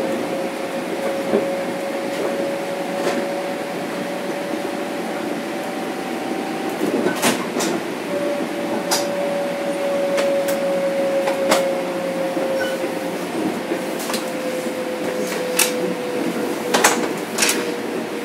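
Interior ride noise of a Metro-North M7 electric multiple unit: steady rolling noise under a thin whine from its Mitsubishi IGBT inverter and AC traction motors. The whine drops out about seven seconds in, returns a second later and then slowly falls in pitch. Scattered sharp clicks and knocks come through.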